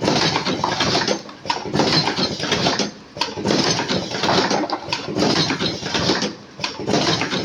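Vertical automatic cartoning machine running: a continuous mechanical clatter with short lulls every couple of seconds.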